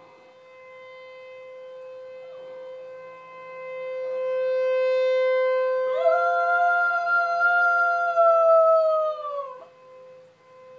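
A tornado warning siren sounds a steady tone that swells louder about four seconds in. A poodle howls along with it: one long howl starting about six seconds in, held for about three and a half seconds, then sliding down in pitch as it ends.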